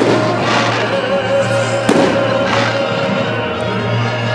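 Fireworks display: aerial shells bursting with two sharp bangs about two seconds apart amid crackling, over music with long held notes.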